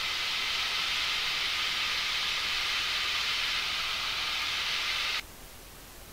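Piper Tomahawk cabin noise at full takeoff power during climb-out, engine and slipstream heard as a steady hiss. About five seconds in it cuts off suddenly to a much fainter hiss.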